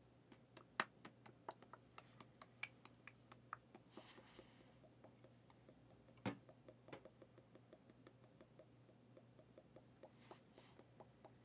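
Faint clicks and light taps of trading cards being handled and flicked through, with a louder knock about six seconds in and two brief soft rustles. A low steady hum runs underneath.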